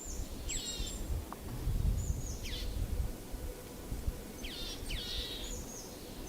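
A songbird singing short, high whistled phrases, each falling steeply in pitch, repeated five or six times over a steady low rumble.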